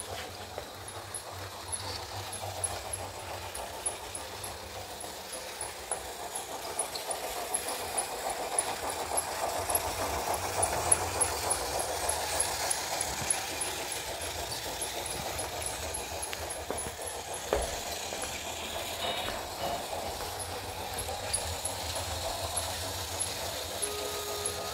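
Motorized LEGO train running on plastic track, its wheels rolling over the rails, with steam-locomotive sound played through the small speaker of an ESU LokSound 5 decoder. It gets louder around the middle as the train passes close, and a steady two-note tone comes in near the end.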